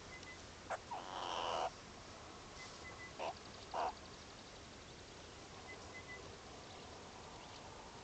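Meerkats calling softly in a huddled group: a harsh call that swells for under a second about a second in, then two short calls about half a second apart a little after three seconds.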